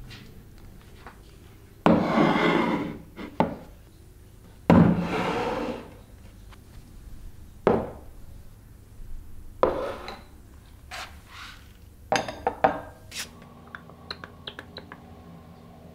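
Ceramic plates and bowls being set down and moved on a table. Near the start there are two louder drawn-out sounds of about a second each, then a series of short knocks and clinks.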